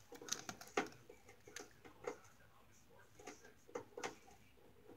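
A white cockatoo chewing at the edge of a wooden box's door frame with its beak: about a dozen irregular sharp cracks and snaps of splintering wood, the loudest about a second in.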